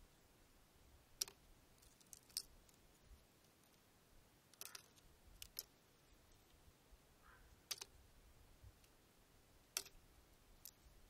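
About six sharp, irregular clicks of thin shale slabs knocking against each other as they are picked up and turned over by hand, over near silence.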